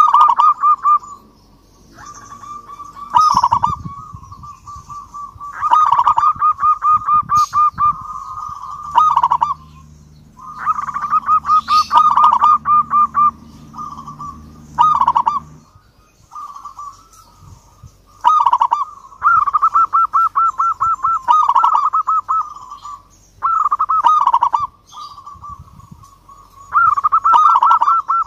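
Zebra dove (perkutut) singing: phrases of fast, rolling, trilled coos on one pitch, each one to three seconds long, repeated with short pauses.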